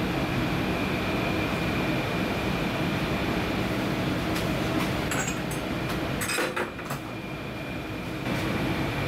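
Steady mechanical rumble of background machinery with a faint high whine. A few light clicks come past the middle, and the noise drops briefly before picking up again near the end.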